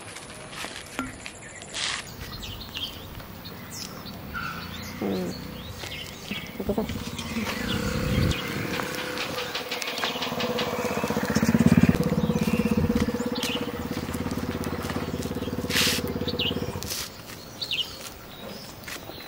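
A motor vehicle's engine passes: a steady hum builds from about six seconds in, is loudest around halfway and fades out near the end. Birds chirp, and there are scattered footsteps and knocks, with one sharp click shortly before the end.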